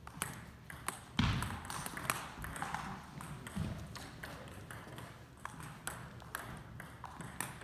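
Scattered sharp clicks of table tennis balls bouncing on tables and off paddles, irregular in timing. A dull thump comes a little over a second in.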